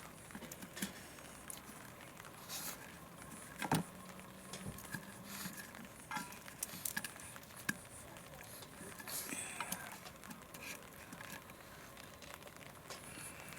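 Scattered light clicks, clinks and knocks of small objects, with one sharper knock about four seconds in that leaves a short low ring.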